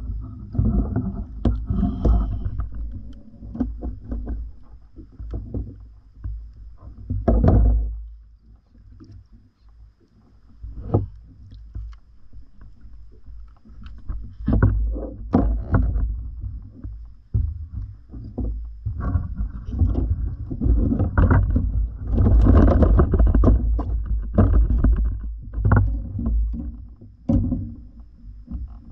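Water lapping and slapping against a kayak's hull, over a steady low wind rumble on the microphone, with irregular knocks and rustles as a caught fish and tackle are handled in the cockpit. The sounds are busiest a few seconds in, again after about a quarter of the way through, and in the back half, with a quieter spell in between.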